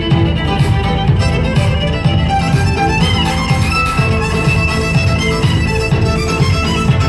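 Violin and cello playing a tune together live, over a backing track with a steady beat from a portable speaker.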